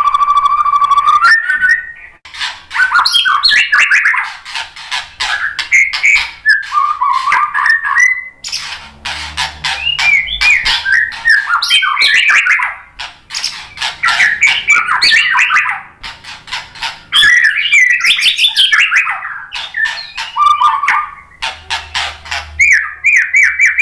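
White-rumped shama singing: one held whistle at the start, then long, rapid phrases of varied whistles, chatters and clicks, broken by short pauses about every six seconds.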